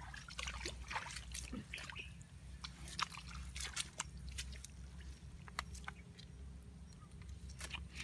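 Woven bamboo fish trap being handled: irregular small clicks and crackles of the bamboo slats under the hands.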